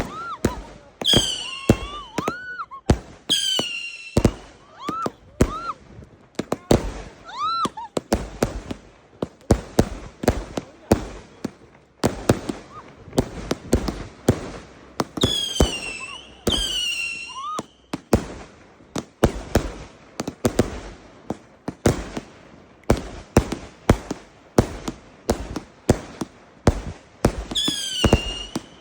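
Fireworks going off in rapid, irregular bangs, mixed with whistling shells: short whistles that rise, and others that sweep high and then fall, in clusters near the start, around the middle and near the end.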